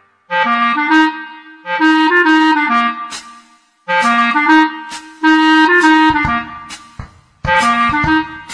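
Background music: a reedy wind-instrument melody played in short phrases of about a second and a half, with brief pauses between them and sharp percussive clicks among the notes.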